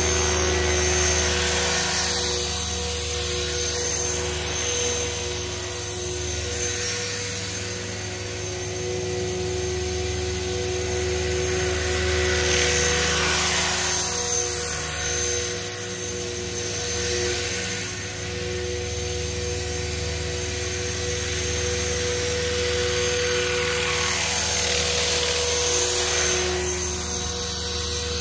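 Align T-Rex 500 electric RC helicopter flying: a steady whine from the motor and drive with rotor blade noise that swells and fades a few times as it moves about.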